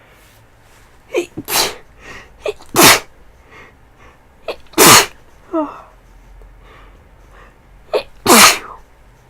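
A woman with a feverish head cold sneezing four times in a row. Short, quick breaths come just before some of the sneezes.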